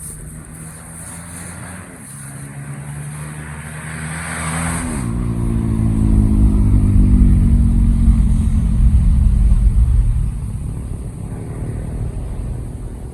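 An engine revving up, then running loud with its pitch slowly falling before it eases off near the end.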